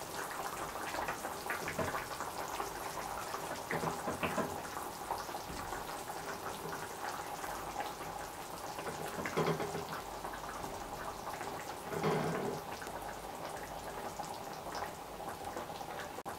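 Buckwheat and water simmering in a frying pan, a steady fine bubbling and crackle, with a few short, soft sounds as pork cutlets are set down into the liquid.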